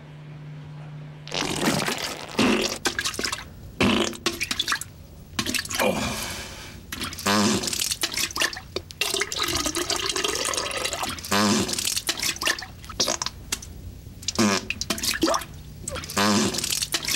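A long run of human farts from a trucker in the next toilet stall: many separate blasts one after another, some drawn-out and buzzing with a wavering pitch, others short.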